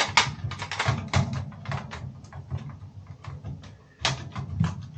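Quick run of plastic clicks and knocks as washing-machine control-console parts are handled and pressed into their mounting, over a low steady hum.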